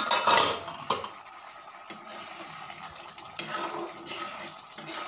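Metal clatter of a cooking-pot lid and utensils in the first second, then a steel ladle scraping and stirring a thick simmering mixture in a metal kadai, with another clatter about three and a half seconds in.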